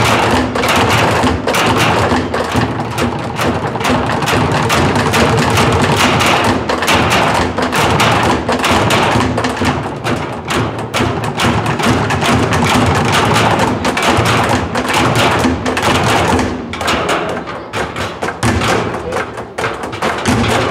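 Percussion ensemble drumming with sticks on metal oil drums and plastic barrels, with a large bass drum, in a dense rhythm of strikes. About three-quarters of the way through the playing drops in level and thins out to sparser hits.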